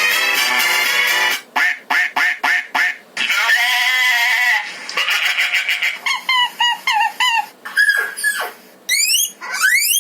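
A run of cartoon sound effects from a phone soundboard app, played loud through a homemade amplifier and speakers. A snatch of music gives way to a quick series of short quack-like honks, then two held tones, some short falling chirps and finally rising zap sweeps.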